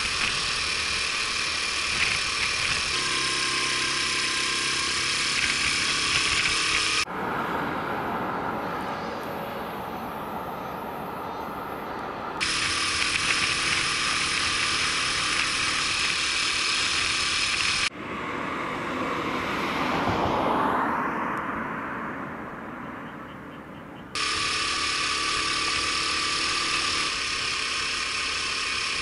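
Honda Super Cub 50's small single-cylinder four-stroke engine running on the move, mixed with wind and road noise at the handlebar-mounted camera. The sound changes abruptly several times as the riding clips cut, and about two-thirds of the way through a swell of noise rises and falls away.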